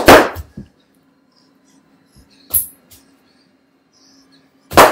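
Loud thumps of feet stomping on an air-filled plastic bag on a carpeted floor, one right at the start and another near the end, with a brief sharp crackle of plastic about halfway through.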